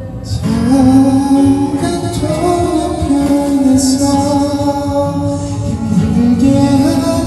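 Karaoke singing: a voice sings a slow ballad melody in long held notes over a karaoke machine's backing track.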